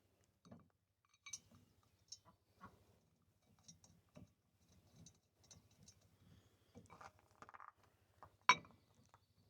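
Faint, scattered small clicks and clinks of metal parts being handled and fitted together on a sawmill's lift-crank assembly, with one sharper click near the end.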